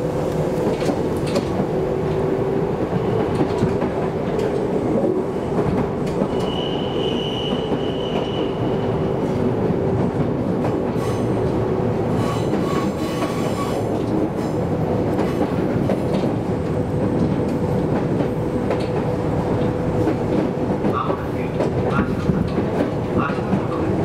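Kintetsu Minami-Osaka Line semi-express train running, heard from inside the passenger car: a steady rolling rumble of wheels on rail with a constant motor hum, occasional clicks over rail joints, and a short high squeal about seven seconds in.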